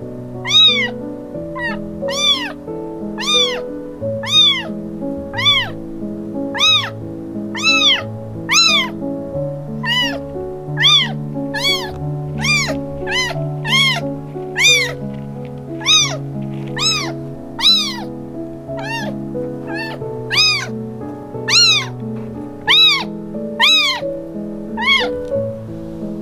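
Baby munchkin kitten meowing over and over, about one high-pitched meow a second, each call rising then falling in pitch. Background music plays underneath.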